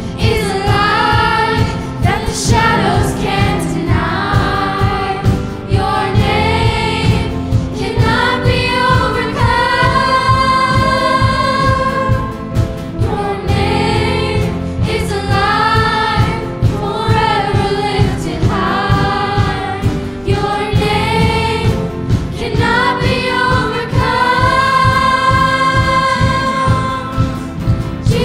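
A group of young female singers singing together and holding long notes, over a live band with keyboard and drums keeping a steady beat.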